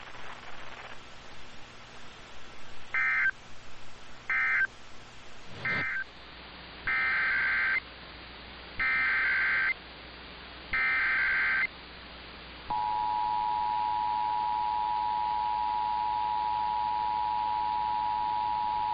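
Emergency Alert System SAME digital data tones: three short raspy bursts of the end-of-message code closing a NOAA Weather Radio test, then, after a cut, three longer bursts of the header code opening the next test. About twelve and a half seconds in, the steady two-tone EAS attention signal begins and holds.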